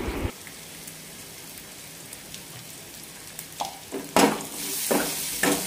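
Onions and green chillies faintly sizzling in oil in an aluminium kadai. From about three and a half seconds in come several short scrapes and knocks of a spoon against the pan as turmeric powder is added.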